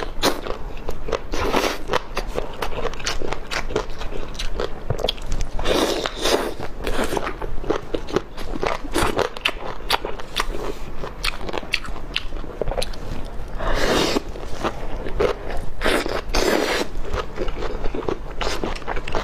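Biting and chewing crunchy food: a steady run of crunches and crackles, with bigger bites about six, fourteen and sixteen and a half seconds in.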